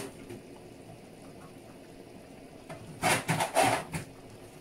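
Kitchen handling noise: a low steady background, then about three seconds in a second-long cluster of rustling and clattering as things are rummaged and handled, likely while the Maggi cubes are fetched for the pot.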